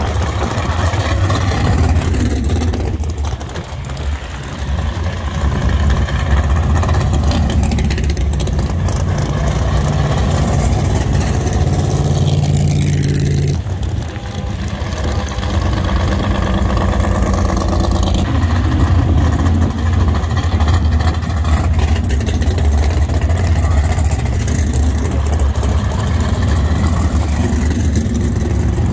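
Drag-race car engines running at low revs, a steady low rumble. A slightly higher note in it swells just before halfway and then cuts off.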